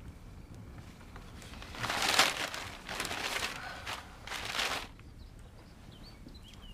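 Newspaper pages rustling and crinkling in three short bursts about a second apart, with faint bird chirps near the end.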